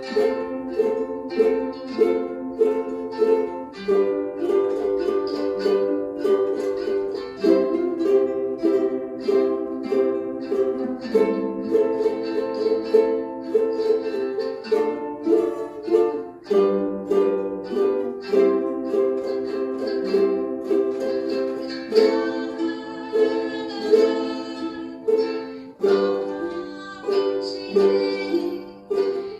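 Ukulele strummed in steady chords, several strokes a second, playing the song's accompaniment with chord changes every couple of seconds.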